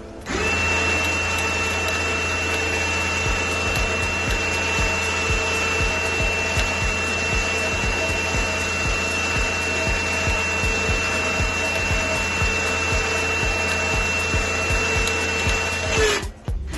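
Harbor Freight Badlands 2500 lb electric winch running with no load, its motor and gear train turning the steel cable drum with a steady whine, a low hum and a light ticking. It starts abruptly, rising in pitch as it spins up, runs evenly, then winds down and stops near the end.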